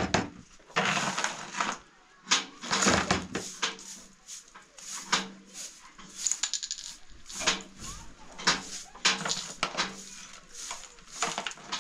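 A string of irregular sharp clinks and knocks, like hard household objects being handled.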